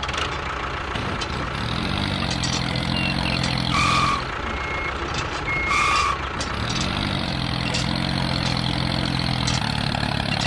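A vehicle engine running steadily, its pitch rising twice, with two short beeps about two seconds apart midway.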